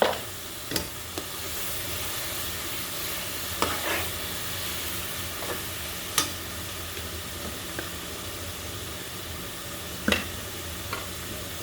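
Fried onions and spice powders sizzling in hot oil in a pan, a steady hiss, with a few sharp clinks of a spoon against the pan as the masala is stirred.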